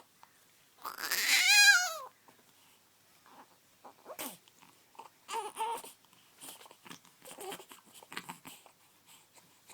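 Baby giving one loud, high-pitched cry about a second in, its pitch rising and then falling. It is followed by a string of short, quieter fussing noises.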